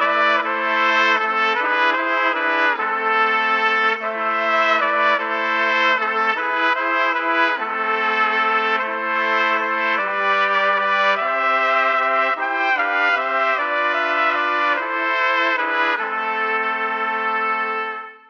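Trumpet quartet, all four parts played by one trumpeter and layered, playing a holiday tune in harmony with short moving notes. It ends on a long held chord that dies away at the very end.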